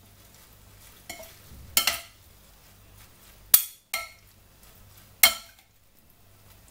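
Salad being tossed in a ceramic bowl with a serving utensil: the utensil clinks sharply against the bowl about five times, a second or so apart, with soft stirring of the leaves in between.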